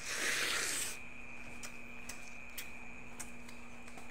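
A juicy bite into yellow watermelon with a short wet slurp in the first second. It is followed by faint scattered clicks of chewing and lip smacks over a steady low hum.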